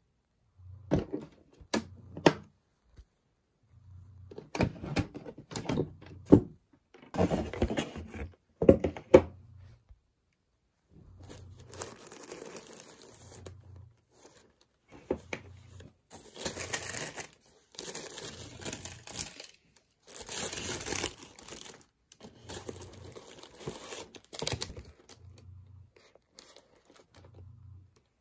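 Unboxing a shoebox by hand: the cardboard box being opened with a few sharp knocks and clicks, then tissue-paper wrapping and a cloth dust bag rustling and crinkling in irregular stretches.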